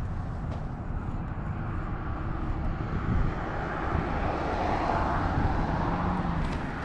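Engine drone, distant and steady, growing louder about four to five seconds in as it passes.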